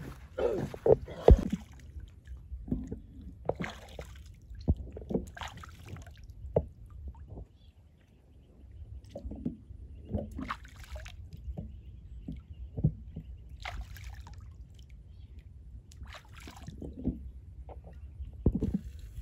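Water sloshing and splashing in a shallow pool in irregular bursts as a scalded duck carcass is dunked, rinsed and rubbed by hand to strip its feathers. A few sharp thumps in the first couple of seconds are the loudest sounds.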